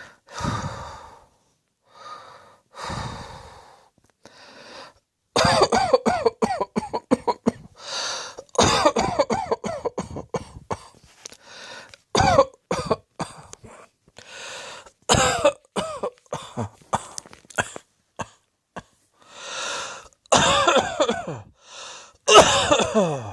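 A person coughing in repeated fits, with breaths between them. The first few seconds hold a few soft breaths; from about five seconds in come long runs of rapid coughs, one fit after another.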